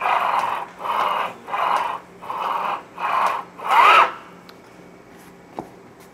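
A Y-gantry plate being pushed by hand back and forth along its rack and rails, giving a rolling rasp with each push, about six in all. The last push, about four seconds in, is the loudest and ends in a short squeak. The carriage is being run over the joint between two rack sections to check for a bump at the seam.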